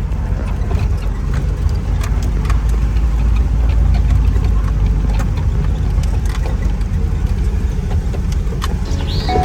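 Jeep engine running with a steady low rumble, with scattered knocks and rattles.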